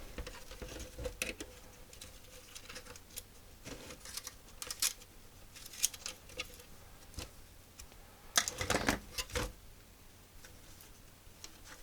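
Tools working on a home computer's circuit board to remove a power mod: scattered light clicks, taps and scrapes, with a cluster of louder knocks about nine seconds in.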